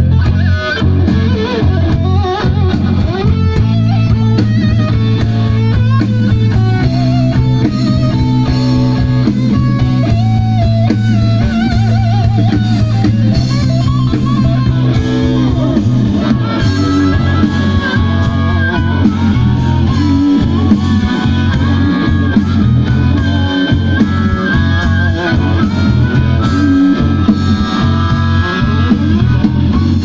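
Live blues-rock band playing: an electric guitar plays a lead line with bent and wavering notes over a stepping bass line and drums.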